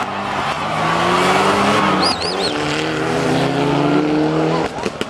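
Mitsubishi Lancer Evolution IX rally car's turbocharged four-cylinder engine revving hard with rising pitch, dropping back at a gear change about two seconds in, then climbing again until it cuts off shortly before the end. A brief high warbling whistle sounds about two seconds in, and a few sharp clicks follow the cut-off.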